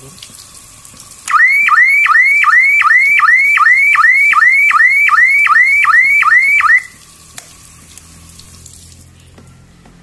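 Outdoor alarm siren of a panic-button siren-and-strobe set sounding a fast rising whoop, about two and a half sweeps a second, for about five seconds, while tap water sprays and hisses over its plastic housing. The water stops near the end.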